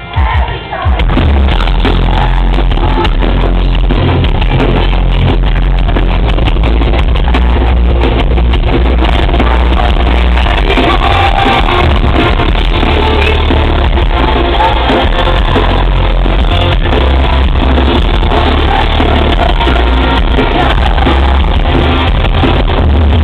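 Live pop-punk band playing loud with guitars, bass and drums, recorded from within the crowd; the full band kicks in about a second in and keeps going at a steady, high level.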